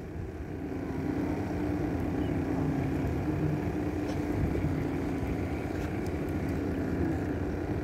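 Boat engine running steadily: a low, even drone with a constant hum, a little louder from about a second in.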